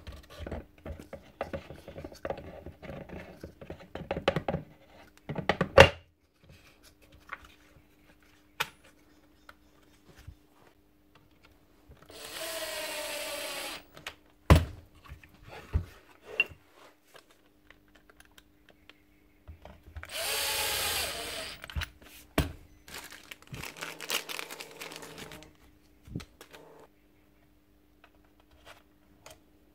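Parts of a dismantled Bosch GSH 11 E demolition hammer being handled and fitted by hand: scattered clicks and knocks of metal and plastic parts. There are two bursts of rushing noise, each about two seconds long, near the middle and about two-thirds of the way through, over a faint steady hum.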